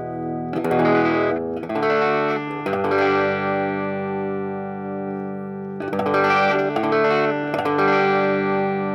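Electric guitar through a Bugera V5 tube amp in 1-watt mode with the gain at maximum, giving a crunchy overdrive rather than full distortion. A few strummed chords are each left to ring out, with a group of strums near the start and another group about six seconds in.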